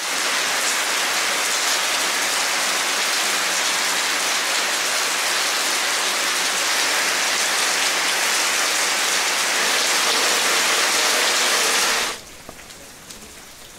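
Heavy rain pouring steadily on wet tiles and ground, a dense even hiss. About twelve seconds in it cuts abruptly to much quieter rain with a few scattered drips.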